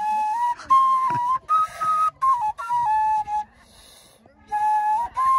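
A solo flute playing a slow melody of held notes in short phrases, with a pause of about a second near the middle.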